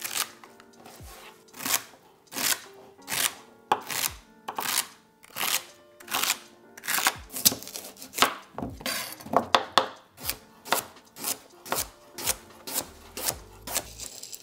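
Chef's knife chopping celery and then a carrot against a cutting board, in a steady series of sharp strokes a little under two a second.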